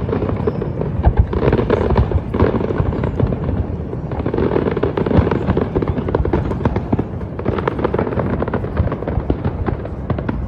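Fireworks display going off in a dense, continuous string of crackles and bangs with a low rumble underneath.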